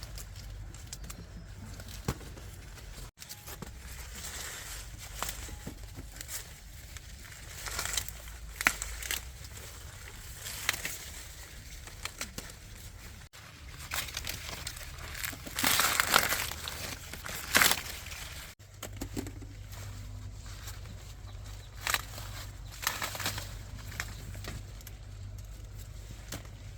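Dry corn plants rustling, snapping and crackling as they are handled, in irregular bursts, the loudest about two-thirds of the way through.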